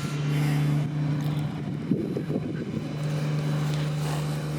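A steady low motor hum, dropping out for a second or so midway and then coming back.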